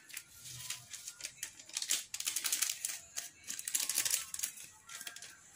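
Paper sachet of raising agent crinkling and being tapped and flicked as it is emptied into a mesh sieve of flour: a quick, uneven run of small crackles and ticks.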